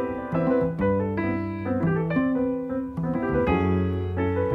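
Piano playing a flowing instrumental fill over sustained double-bass notes, with no singing.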